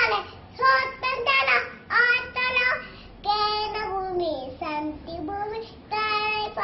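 A young girl singing a national anthem unaccompanied, in short sung phrases with brief pauses between them.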